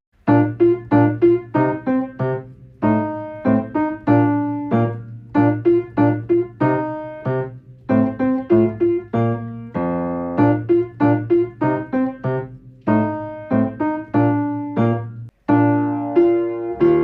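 Piano playing a bouncy tune in short, quickly decaying notes and chords, with a brief break near the end.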